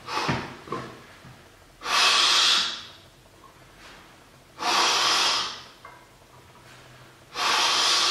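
A man breathing hard while curling a heavy barbell, about 50 kg, in a strict curl: three loud breaths about a second long, roughly three seconds apart, the effort of a heavy set.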